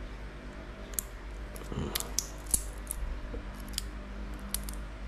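Small sharp metallic clicks and clinks of a Marc Jacobs watch's gold-tone metal link bracelet being handled and fitted back to the case, scattered irregularly about half a second to a second apart.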